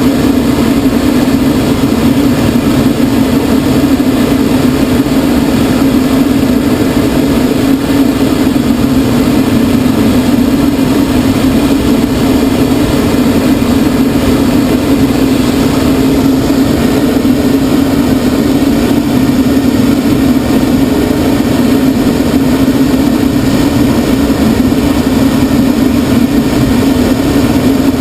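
Steady drone of the tow plane's engine and propeller heard from the glider cockpit on aerotow, over a constant rush of air.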